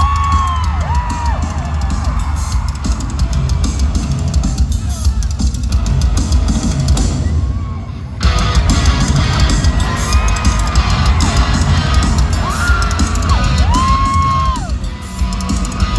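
Loud live rock music with a drum kit and pounding bass, with held sung or yelled notes rising and falling over it. The sound drops briefly about halfway through, then comes back at full level.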